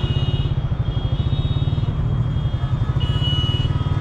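Vento Lithium motorcycle running along at road speed, its engine a steady low, finely pulsing rumble mixed with wind noise on the microphone.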